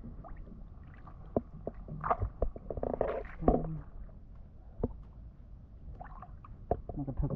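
Handling noise from a wet woven bamboo basket: scattered clicks and knocks over a low rumble.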